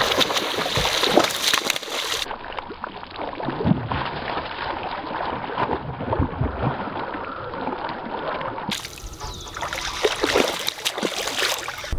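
Pond water splashing and sloshing irregularly, with several sharper splashes, as a bass thrashes at the surface on a topwater frog.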